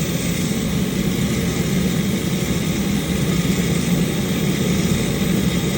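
Electric parking brake motor on the rear brake caliper of a 2019 Lexus ES 350, running on direct 12-volt power from a jumper, with a steady, unbroken hum that winds the caliper piston back for new pads.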